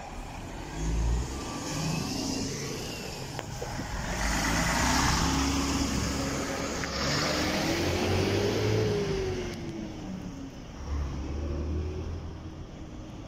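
Heavy diesel fire trucks, a Scania and a MAN, pulling away one after another without sirens. The engine note climbs and then drops as one truck accelerates, loudest in the middle before fading as it moves off.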